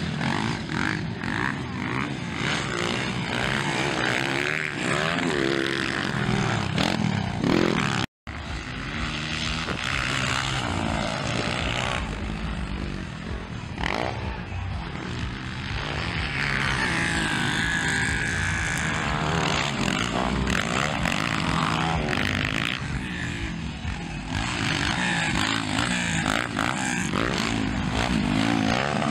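Motocross dirt bike engines revving hard and easing off as riders race around the track, the pitch rising and falling repeatedly. The sound cuts out completely for a moment about eight seconds in.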